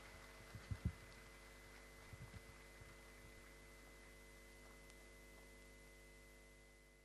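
Near silence: a faint steady electrical hum, with a few soft low thumps about a second in and again around two seconds.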